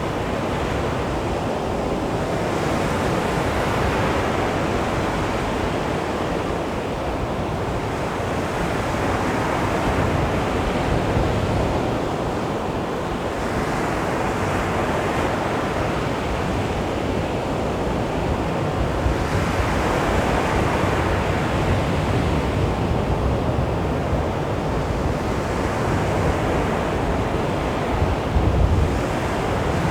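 Small sea waves washing onto a beach, the surf swelling and easing every few seconds, with some wind rumble on the microphone.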